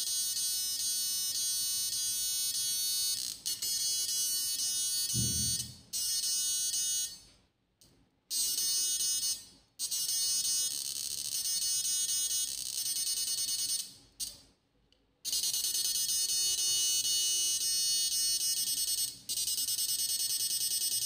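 Electrofishing inverter (6-FET battery unit) running on the bench with a steady high-pitched electronic whine. The whine cuts out and comes back several times, with a short low thump about five seconds in.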